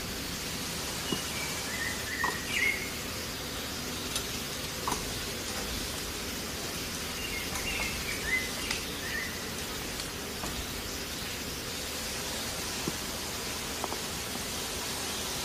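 Hot oil sizzling steadily in a pan as food fries, a continuous rain-like hiss. Two brief clusters of short chirps, about 2 and 8 seconds in, and a few light clicks sound over it.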